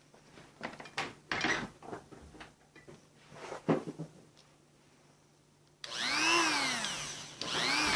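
A few scattered clicks and knocks, then about six seconds in a Mastercraft rotary tool is switched on: its motor whines up in pitch and winds back down. It is switched on again near the end and runs with a steady high whine.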